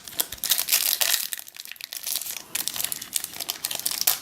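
A trading card pack wrapper being crinkled and torn open by hand, a dense crackling rustle with a short lull about halfway through.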